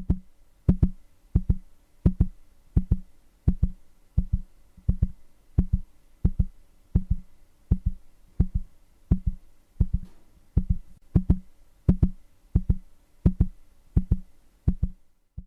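Music: a low electronic drum beat, a deep thud roughly every 0.7 s, like a slow heartbeat, over a faint held tone.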